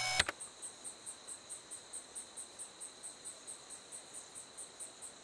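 Night insects chirping, cricket-like, in an even rhythm of about five pulses a second over a steady high-pitched whine. A brief louder sound cuts in at the very start.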